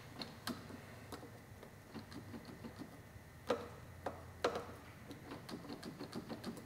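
Light mechanical clicking from a billet-aluminium CRG aftermarket clutch lever and perch as it is handled and adjusted, its spring-loaded ball detents clicking. The clicks are small and irregular, with two louder clicks about a second apart midway.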